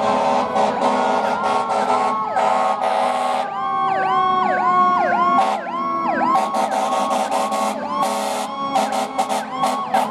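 Fire engine's siren running a fast yelp, about two to three rising sweeps a second, over a mechanical siren's whine that slowly falls in pitch. Short air horn blasts cut in, coming thick and fast near the end.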